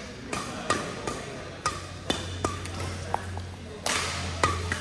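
Badminton rally: sharp racket strikes on the shuttlecock in quick succession, roughly every half second, with short shoe squeaks on the court floor between them.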